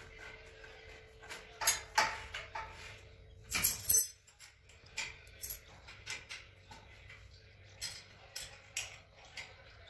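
Scattered clicks and clinks of metal parts being handled as the steel spiral paddle shaft of an electric putty mixer is fitted to the machine, with a louder clatter about four seconds in. The mixer's motor is not running.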